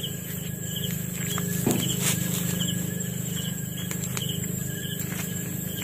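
Crickets and other night insects chirping in a steady, evenly pulsing chorus, over a low steady hum.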